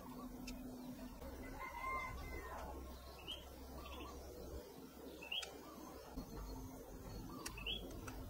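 Scattered light clicks and taps of a white plastic radio-cassette-player housing being handled and pried apart, with faint bird calls in the background.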